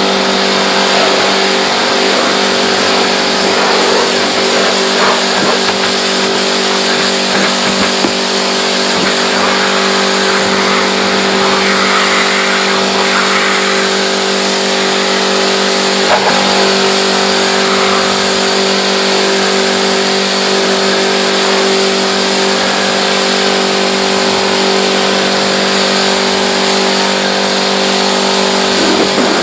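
Pressure washer running steadily: a constant motor hum over the hiss of the water spray.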